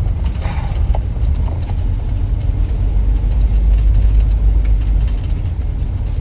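Low, steady engine and road rumble heard inside a vehicle's cab while driving on a dirt forest road, with a few faint rattles early on.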